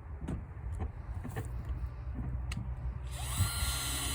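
Power drill driving a small screw into wood: a few light knocks, then about three seconds in the drill spins up and runs at a steady whine.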